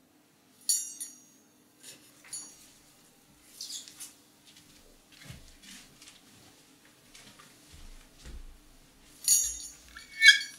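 A few sharp, high clinks and squeaks, loudest about a second in and twice near the end, with softer knocks and rustling between, over a faint steady hum.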